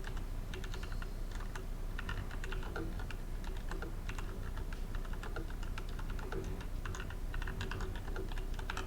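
Typing on a Tecware Phantom mechanical keyboard: a steady, uneven run of key clicks, several a second.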